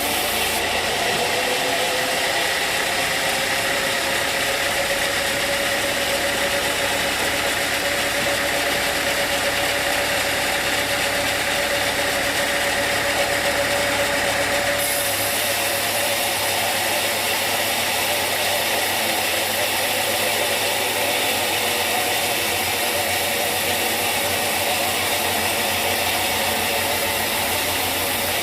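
Sawmill machinery running steadily, with a held whine that rises slowly in pitch over the first half and shifts about halfway through.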